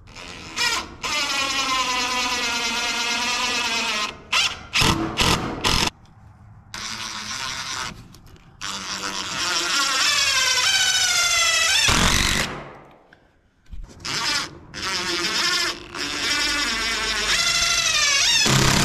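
Handheld power drill run in a series of trigger pulls: short blips between runs of a few seconds, the motor whine climbing in pitch as it speeds up and dropping away as it winds down.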